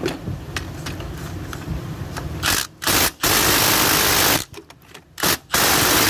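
Cordless impact wrench hammering in repeated bursts, two short and one long, a pause, then more, on a very tight transmission bell housing bolt. Before that come about two seconds of socket-and-tool clatter.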